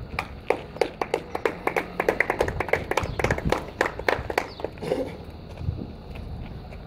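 A small audience clapping by hand, a dense run of irregular claps that dies away after about four and a half seconds.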